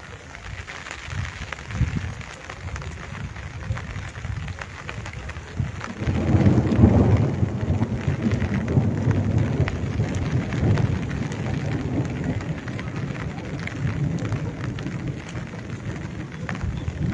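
Gentle rain hissing steadily, with a long, low rumble of thunder that starts about six seconds in and slowly fades away.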